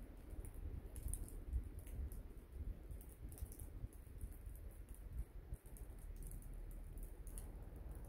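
Faint outdoor sound of a heavy snowfall: scattered soft ticks and crackles of snow landing, over a low, uneven rumble of wind on the microphone.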